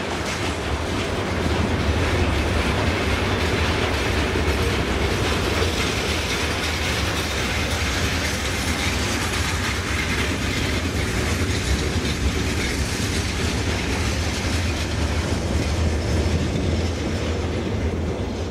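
Freight train wagons rolling on the rails: a steady low rumble of wheels with clatter.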